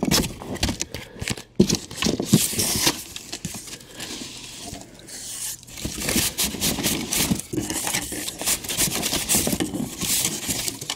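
Cardboard shipping box and its cardboard grid divider insert being handled and pulled out: irregular scraping, rustling and crinkling with many small knocks.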